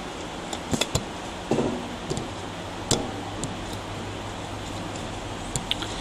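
A scattering of short, light clicks and taps from a plastic-and-metal laptop being handled on a soft surface, a cluster about a second in, another near the middle and two more near the end, over a steady low room hum.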